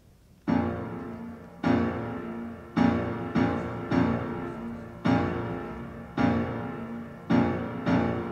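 Background piano music: slow chords struck about once a second, each ringing and fading before the next, starting about half a second in.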